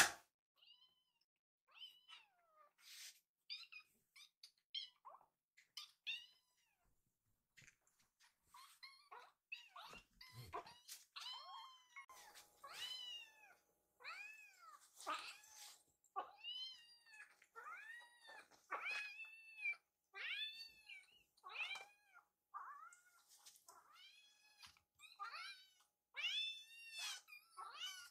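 Kittens meowing over and over in short, arching high calls. The calls are sparse at first and come almost without pause from about a third of the way in. They are begging for food.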